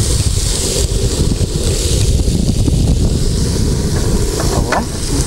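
Ribeye steaks sizzling in a very hot nonstick grill pan, under a steady low rumble that is louder than the sizzle.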